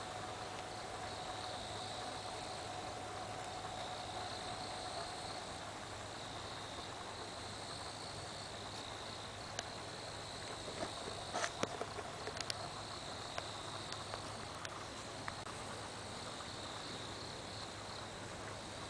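Crickets chirping steadily in a pulsing high chorus, with a lower steady trill that fades out about five seconds in. A little past halfway comes a brief cluster of clicks and knocks.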